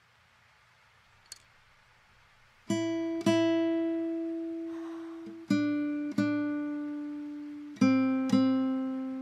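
Background music: slow acoustic guitar, single notes plucked in pairs about every two and a half seconds, each left to ring and fade. It begins a few seconds in, after near silence broken by one faint tick.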